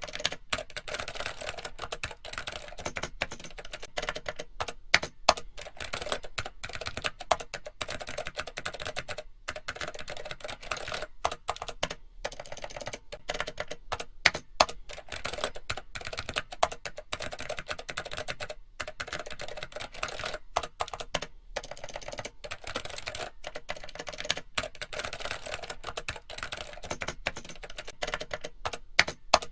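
Computer keyboard typing: a fast, continuous run of key clicks with no pauses, a few clacks louder than the rest.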